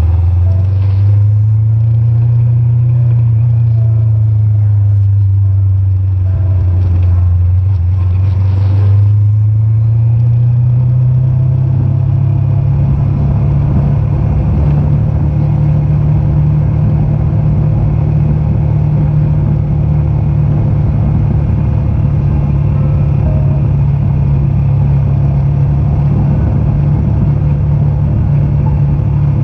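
Motorcycle engine running while riding, heard from the rider's seat: a steady low drone over road and wind rush. It dips slightly and then rises in pitch around ten seconds in, and holds steady at the higher pitch after that.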